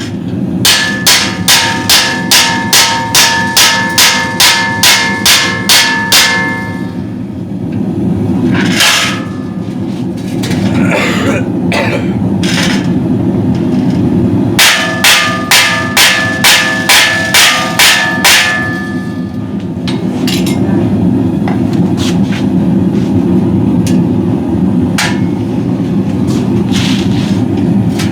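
Hammer striking steel in two fast runs of ringing blows, about three a second. The first run opens the stretch and the second starts about halfway through; these are hot rivets being hammered down on a hand-forged steel pot rack crown. A steady low roar runs underneath.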